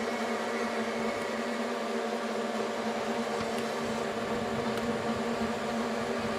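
Steady mechanical drone of a heavy road-construction machine's engine running at constant speed, with an even hum and no change in pitch.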